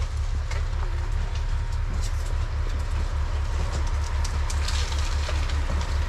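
A steady low mechanical rumble that pulses evenly several times a second, like a large engine running, with scattered light clicks and rustles of debris underfoot.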